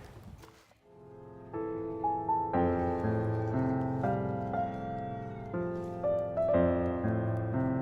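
Background piano music: slow chords that come in about a second in after a brief fade.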